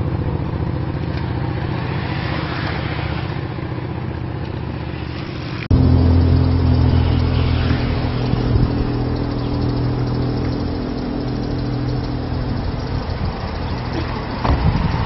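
Motor vehicle engine running steadily with road noise. About six seconds in the sound changes abruptly to a louder, steadier engine hum.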